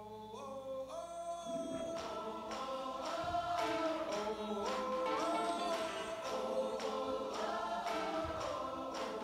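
Dance routine music starting: layered sung harmonies enter one voice after another and build, then a steady beat of about two hits a second comes in about two seconds in.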